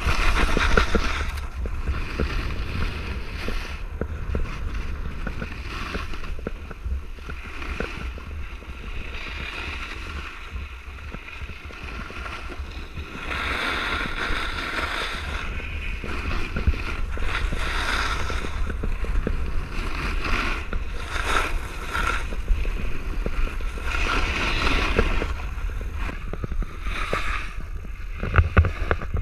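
Wind rushing over an action camera's microphone while riding downhill, with a steady deep rumble, and snowboard edges scraping across packed snow in hissing surges that swell and fade with each turn.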